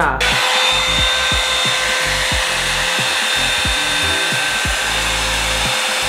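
Revlon One-Step hair dryer brush running on high heat: a loud, steady rush of air with a steady motor whine. Background music with a beat plays underneath.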